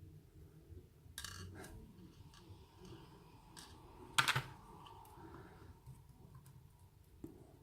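Faint scattered small metal clicks and taps as lock pins and springs are picked out of the cylinder with tweezers and set down, the loudest about four seconds in.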